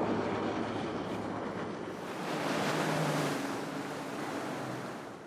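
Rigid inflatable boat running fast over the sea: a rush of water and spray from the hull and wake, with wind, over a faint steady engine hum. It swells about two seconds in and fades toward the end.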